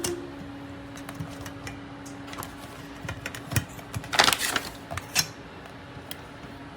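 Scattered light clicks and taps of things being handled, with a short rustle about four seconds in and a faint steady hum at the start.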